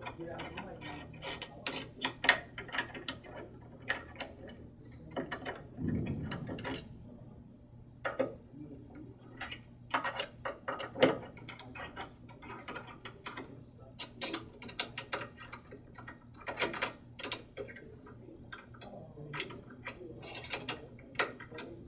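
Allen wrench working screws on a metal positioning stage: irregular sharp clicks and ticks as the hex key turns and catches in the screw heads and the parts are handled, with a duller knock about six seconds in.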